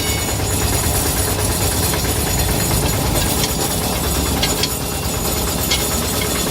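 A steady mechanical rumble of a running vehicle, with a few faint clicks about halfway through and near the end.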